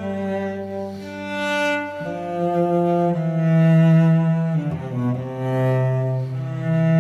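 Music of bowed string instruments in a low register, slow held notes changing every second or two over a sustained bass note.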